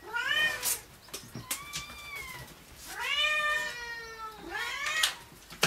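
Domestic cat meowing repeatedly, a run of rising-and-falling meows with one long drawn-out meow in the middle.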